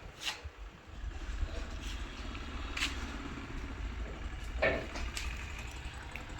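A steady low rumble with a few short, sharp knocks or clicks scattered through it, the loudest about two-thirds of the way in.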